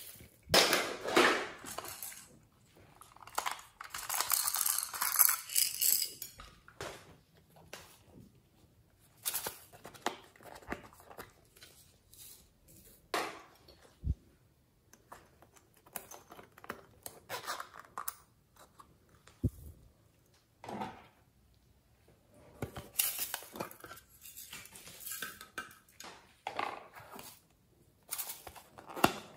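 Hands handling small plastic containers over a glass bowl: scattered clicks and knocks with short rustling scrapes, the longest about four seconds in.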